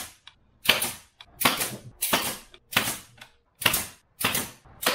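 Ridgid pneumatic brad nailer firing repeatedly, driving brads into pine 1x2 blocking. Sharp cracks come at a steady pace, roughly three shots every two seconds, each with a short ringing tail.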